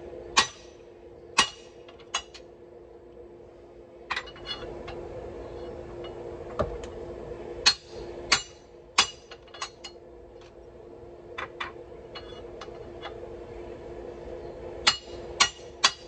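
Hand hammer striking the top die of a blacksmith's guillotine fullering tool: sharp, ringing metallic blows at an irregular pace, a few a second at most, as hot steel is necked in to isolate a knife's tang.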